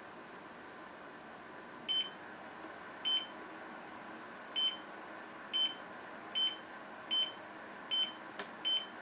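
HONMICON mini dehumidifier's control-panel buttons beeping eight times at uneven intervals as they are pressed, each a short high-pitched beep, over the steady hum of the unit running. A faint click comes shortly before the last beep.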